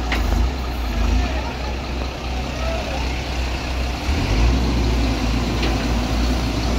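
Heavy diesel vehicle engine labouring under load in a recovery of a stuck truck, its low rumble getting stronger and deeper about four seconds in as it works harder.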